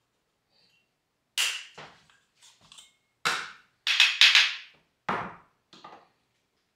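An irregular series of sharp knocks and clunks, about eight in all, the loudest a close cluster about four seconds in.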